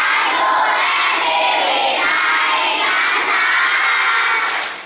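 A large group of primary-school children singing a Thai song together in loud unison, with a brief drop in level near the end.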